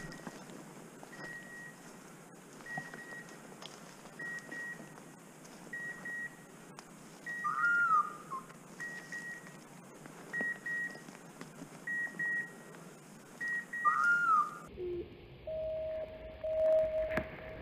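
Electronic beeper collar on a hunting dog, giving a short high beep about every second and a half. Two louder whistled calls that rise and fall come about halfway through and again near the end. About three seconds before the end the sound cuts to a steady lower tone lasting about two seconds.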